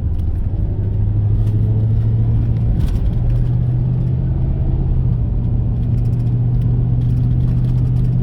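A vehicle driving steadily, with a low engine drone and road rumble. The engine note steps up a little about three seconds in, then holds.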